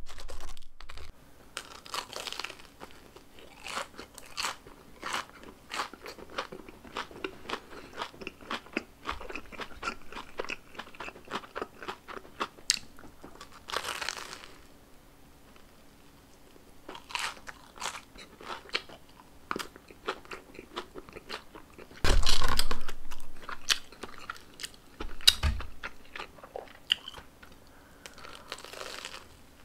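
Close-miked crunching and chewing of a breadcrumb-coated Korean corn dog: repeated bites crackle through the fried crust, followed by chewing, with the loudest, heaviest crunch about three-quarters of the way through.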